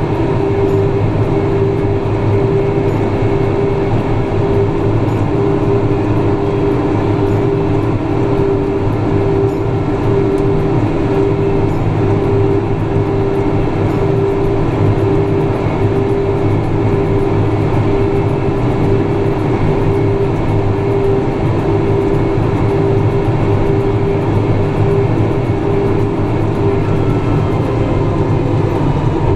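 Tractor engine running steadily under load while pulling a ripper through the field: a loud, unbroken drone with a constant hum in it.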